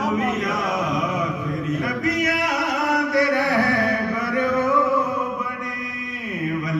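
A man's voice chanting into a microphone in long drawn-out, ornamented notes, the pitch dropping near the end.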